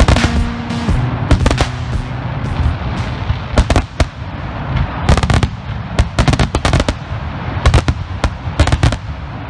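Aerial fireworks display going off: sharp bangs and crackling reports in quick clusters every second or so, over a continuous rumble.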